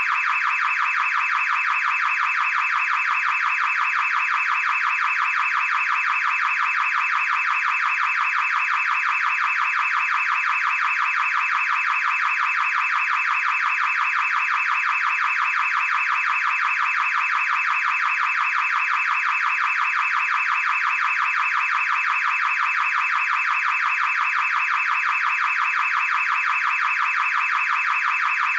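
Electronic alarm sounding without a break: a shrill, rapidly pulsing tone that holds one steady pitch, neither rising nor falling.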